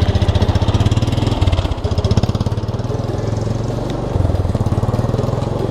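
Four-wheeler (ATV) engine running close by at a steady idle, its pitch stepping slightly a couple of times.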